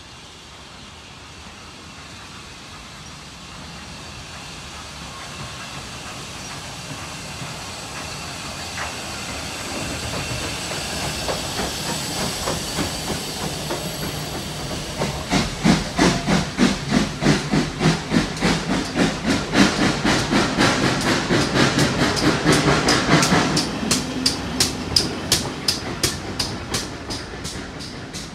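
Steam locomotive working past: a hiss of steam grows louder over the first half, then sharp, evenly spaced exhaust beats, about three a second, come in about halfway through, are loudest in the middle and fade near the end.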